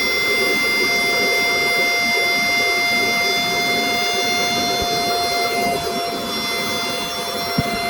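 Electric air pump running steadily, a constant whine over a rushing hiss, as it inflates an inflatable tent; a short knock sounds near the end.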